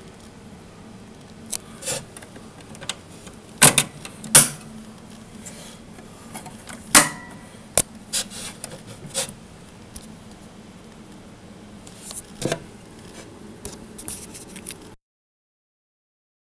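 Scattered clicks, taps and scrapes of a handheld camera being moved and handled, the sharpest a few seconds in and again around the middle. The sound cuts out to total silence near the end.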